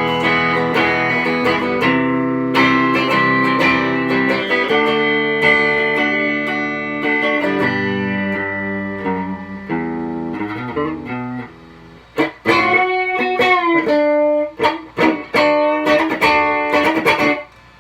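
Stratocaster-style electric guitar with three single-coil pickups, played on the middle pickup alone. Sustained ringing chords for about eleven seconds, then a short break and picked single notes with some bent in pitch.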